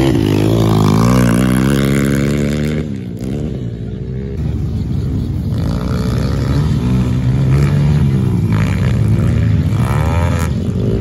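Motocross bike engines revving, the pitch rising and falling again and again as riders work the throttle over the jumps, easing off for a moment about three seconds in before picking up again.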